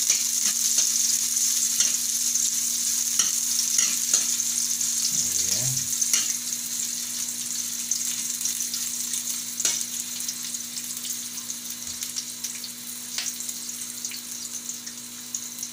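Chopped garlic and onion sizzling in hot oil in a wok, with a metal spatula scraping and tapping against the pan as they are stirred. The sizzle slowly grows quieter, and the scrapes thin out in the second half.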